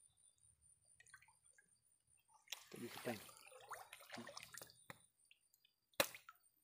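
Mostly quiet, with a person's voice briefly in the middle and a single sharp click near the end.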